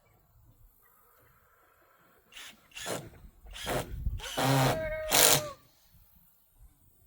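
Power drill run in five short bursts over about three seconds, the longest in the middle with a pitched motor whine, as when driving screws to fasten hardware cloth to the run's frame.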